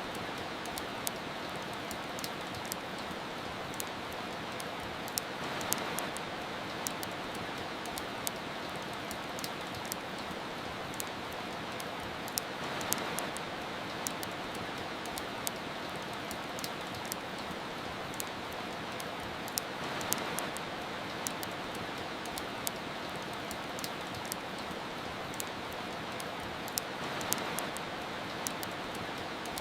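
Steady rain hiss mixed with frequent sharp crackles from a wood fire, swelling gently about every seven seconds.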